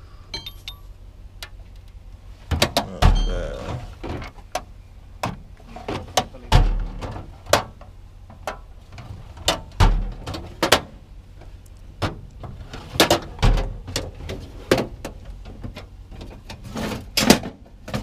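Rummaging through metal toolboxes: drawers sliding and shutting and tools knocking together, a string of sharp clanks and clicks with four heavier thuds spaced a few seconds apart.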